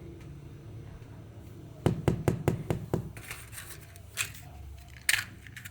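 A quick run of about six sharp knocks about two seconds in, then rustling and handling noise with one louder scrape-like burst near the end, over a steady low hum.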